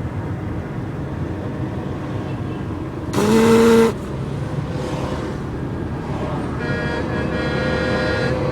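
Road traffic noise with a semi-truck air horn blasting once, loud and steady in pitch, for under a second about three seconds in. A second, fainter horn begins sounding steadily near the end.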